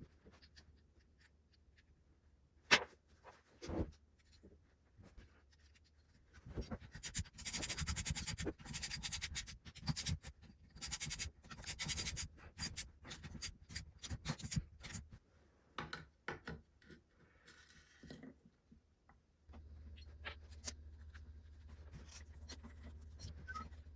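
Hand work on a dirt bike engine's top end: a couple of sharp knocks, then a long run of rapid scratchy clicking and scraping from tools and metal parts being handled, with scattered clicks after. A steady low hum comes in near the end.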